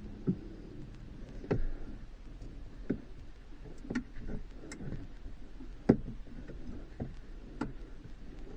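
Hand tools and metal and plastic mounting parts being handled: about a dozen irregular light clicks and knocks, the sharpest about 6 s in.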